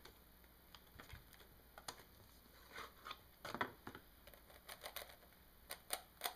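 A 3x3 speed cube's layers being turned by hand, giving soft, irregular clicks and clatters.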